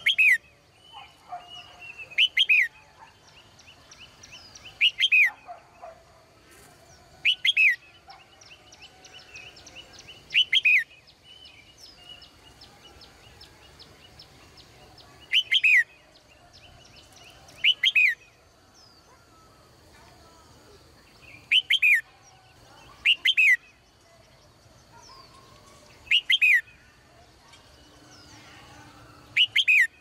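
A caged red-whiskered bulbul calling, about a dozen short loud phrases spaced a few seconds apart, each a quick pair of falling whistled notes. Softer chirping from other birds and a thin steady high note carry on between the calls.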